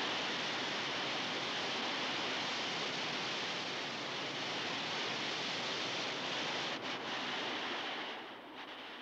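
Steady rush of white water at a waterfall or rapids, which drops away noticeably about eight seconds in.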